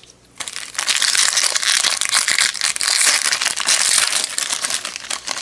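Foil wrapper of a 2018 Topps Chrome baseball card pack crinkling and tearing as it is ripped open by hand, a dense crackle that starts about half a second in and stops just before the end.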